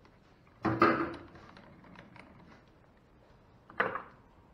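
Metal-lathe tool holder being turned and reset by hand: a quick clatter of metal clicks and clunks about a second in, a few faint ticks, then another short clatter near the end.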